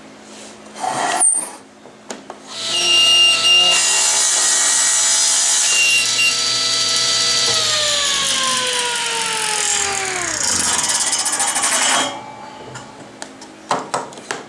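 General Model 350 table saw starting up and crosscutting a wooden cylinder clamped in a hand screw, with a steady whine and the hiss of the blade in the wood. About halfway through, the motor's whine slides down in pitch as the saw winds down, and the noise stops about three-quarters of the way in. A few light knocks follow.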